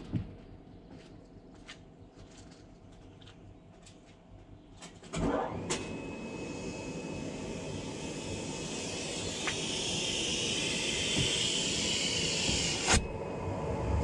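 Gas-station car vacuum switching on about five seconds in, then running steadily with a constant high whine over a rushing noise that grows gradually louder. A sharp click near the end.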